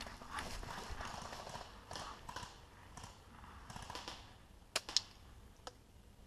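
Dry leaf litter crunching and rustling as a person shifts and steps on it, irregularly. Two sharp clicks come close together about five seconds in.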